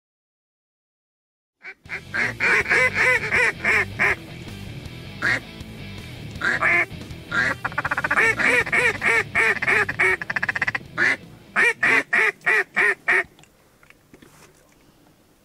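Duck quacking: loud runs of rapid quacks, several a second, broken by short pauses. They start after a couple of seconds of silence and stop a couple of seconds before the end.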